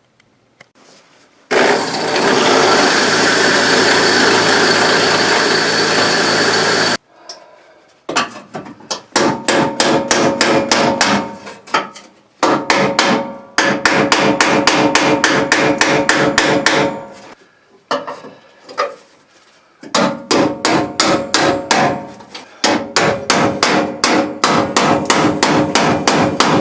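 Bursts of rapid hammer blows, several a second, ringing on the steel crossmember as it is beaten loose from its spot welds on the front subframe. Before the blows come about five seconds of a steady tool noise.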